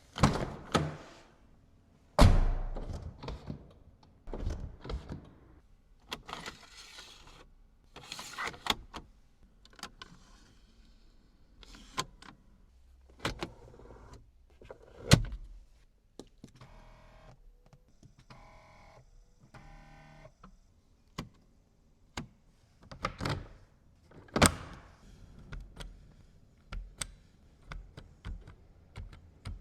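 Clicks, thunks and a brief whirring from the Mercedes SL55 AMG's electric body mechanisms, not its engine. The whir comes about halfway through, between scattered knocks.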